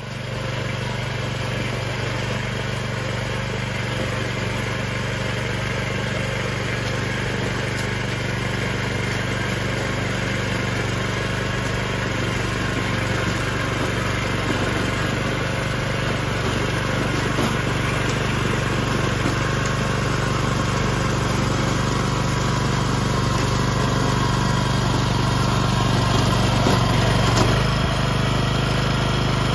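Agria walk-behind rotary tiller running steadily while its tines work damp soil, its engine note shifting a little near the end.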